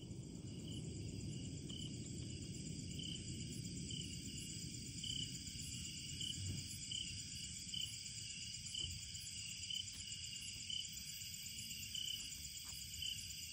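Night insects chirping steadily: a high continuous trill with a shorter chirp repeating a little faster than once a second, over a low rumble that eases over the first few seconds.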